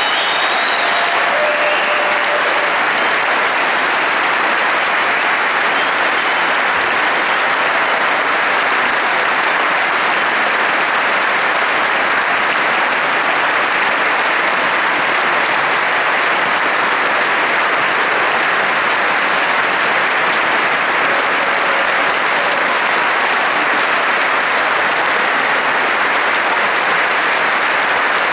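Large concert-hall audience giving sustained curtain-call applause: dense, even clapping from many hands that holds steady without a break.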